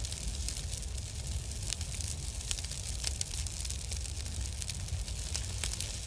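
Fire sound effect: a steady low rumble with many small crackling pops.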